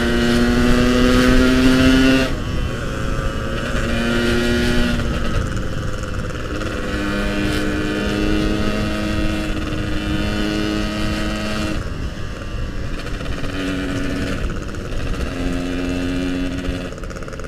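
Yamaha RX-King's 135cc two-stroke single-cylinder engine running while riding, its pitch holding steady for a few seconds at a time and then stepping up or down with throttle and gear changes, loudest in the first two seconds. Wind rumble on the microphone runs underneath.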